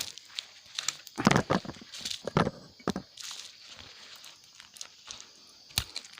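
Intermittent crinkling and sharp clicks from hands handling salvaged 18650 lithium-ion cells and their insulating tape, in a few short bursts.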